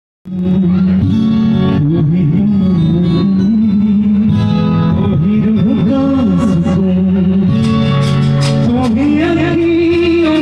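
A man singing a slow, ornamented melody into a microphone over live instrumental accompaniment, heard through a PA system; the sound starts abruptly just after the beginning.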